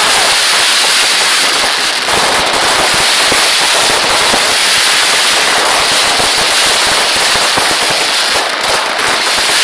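Consumer fireworks going off in a dense, loud, unbroken barrage of rapid crackling and popping, many small bangs overlapping.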